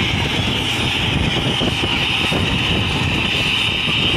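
Mi-17 helicopter running on the ground with its rotors turning: a steady high turbine whine over a rapid, continuous low rotor chop.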